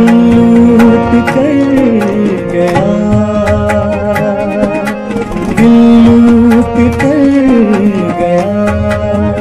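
Ghazal music between sung lines: harmonium holding notes while a melody line slides between held pitches, over tabla strokes in a steady rhythm.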